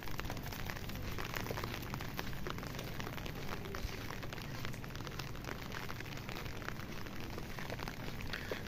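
Steady rain falling on a paved lane: an even hiss with many small drop ticks.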